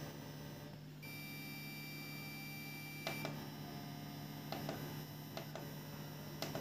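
Faint steady low mains hum from a Challenger 350 W professional amplifier playing through an 8-inch speaker, the fault being diagnosed. A thin high beep-like tone runs for about two seconds early on, and a few light clicks come later.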